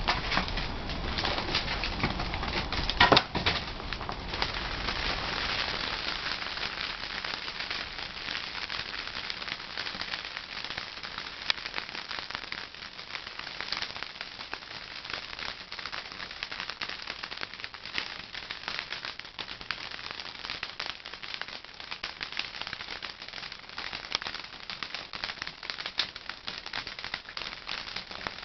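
Wood fire crackling and popping in the firebox of a traditional wood-fired kiln, a dense run of small pops, with a sharp knock about three seconds in.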